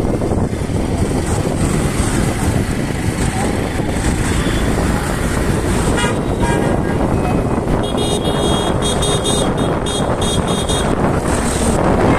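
Riding motorcycle with wind buffeting the microphone over the engine and road noise. A horn toots briefly near the middle, then sounds in a quick run of beeps for about three seconds.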